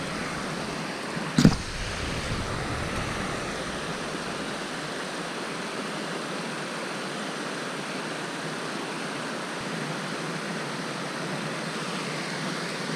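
Steady rush of water flowing through a lake spillway, with one short knock about a second and a half in.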